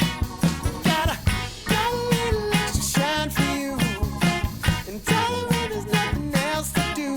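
Background music with a steady beat, drums and guitar, and a melodic line on top.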